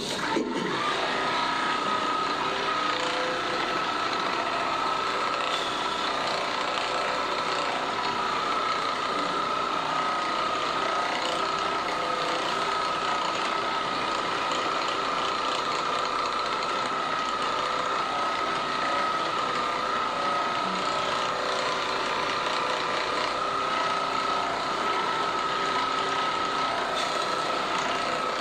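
A small motorised device running steadily with a constant whine. It starts abruptly and holds unchanged.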